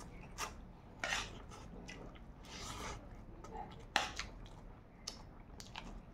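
A person eating at close range: chewing and slurping in a mouthful of leafy fenugreek greens and rice, in soft wet mouth sounds, with a sharp click of a metal spoon on the plate about four seconds in.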